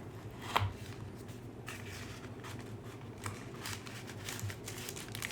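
Hands opening a small cardboard product box: light scraping and rustling, with one sharp click about half a second in.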